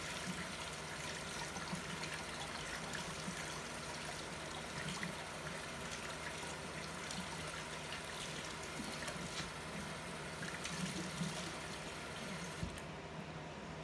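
Tap water running steadily into a kitchen sink, shut off near the end.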